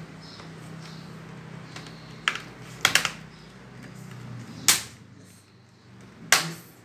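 Plastic screen bezel of a Dell Inspiron 3442 laptop lid being pressed into place by hand, its clips snapping in with about five sharp clicks spread over a few seconds.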